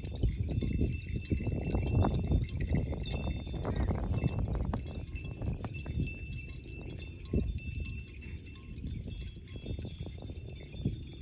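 Cow tearing and cropping grass close by in an irregular run of short crunches, over a low wind rumble on the microphone. A faint steady high thin tone runs beneath and stops about seven seconds in.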